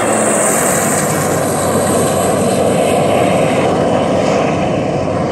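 Race jet boat running at high speed with a loud, steady engine roar and the rush of its water jet and spray. The high hiss eases off after the first couple of seconds as the boat moves away.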